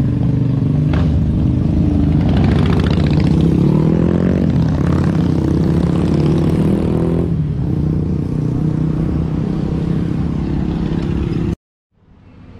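Motorcycle engine under way, revving up in two rising pulls about two and four seconds in, then easing off and running steadily. The sound cuts off abruptly near the end.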